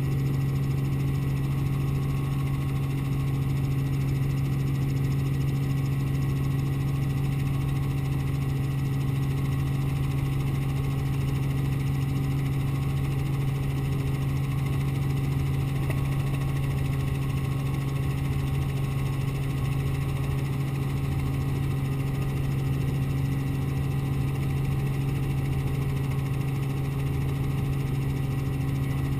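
Robinson R44 helicopter in forward flight, heard from inside the cabin: its six-cylinder Lycoming piston engine and rotors make a steady, unchanging drone with a strong low hum.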